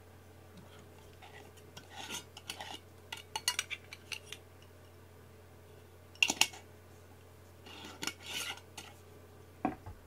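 Light clinking and clattering of small hard objects in four short bursts, the loudest about six seconds in.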